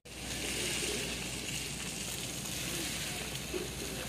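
Steady hiss of a plaza fountain's water jets splashing into the basin, with faint voices of passers-by in the background.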